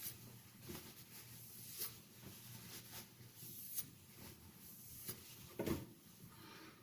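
Light, irregular strokes of a stainless kitchen knife's edge drawn across an oiled natural Arkansas oilstone, micro-beveling the edge at the finishing stage. A louder knock about two-thirds of the way through.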